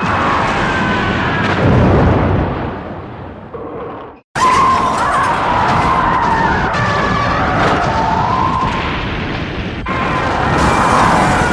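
Two separate kaiju-film sound effects from the Heisei Gamera films. First a harsh rumbling effect with a deep boom about two seconds in, fading away. Then, after a short silence, a sustained screeching effect whose pitch wavers up and down.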